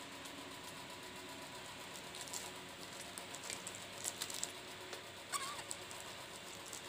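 Clear plastic bag crinkling and rustling in short scattered crackles as a baby monkey grabs and tugs at it, with a brief high squeak about five seconds in.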